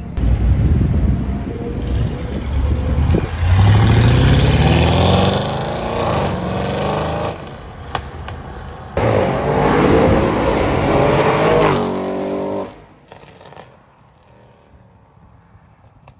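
Cars accelerating hard along the road, one after another, their engines revving up with rising pitch: the first from about three seconds in, the second from about nine seconds. The second cuts off at about twelve and a half seconds and only faint background remains.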